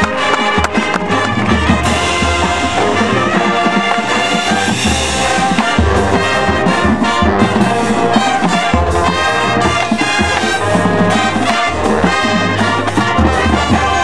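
High school marching band playing its competition field show: full brass chords from trumpets and trombones over repeated low bass notes, with drum strokes throughout.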